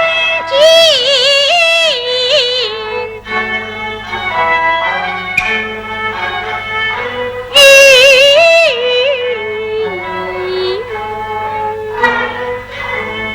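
Peking opera music: a high, wavering melody line over accompaniment, loudest in two passages, about half a second in and again near eight seconds.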